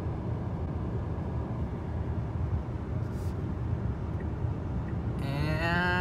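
Road noise inside a moving car: a steady low rumble. Near the end a drawn-out tone with several overtones comes in, rising in pitch.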